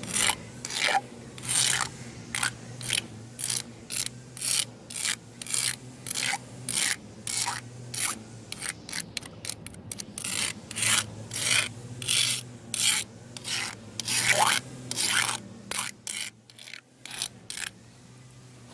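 Repeated rasping strokes on the concrete sidewalk as raw egg is scraped and spread thin, about two strokes a second, thinning out near the end.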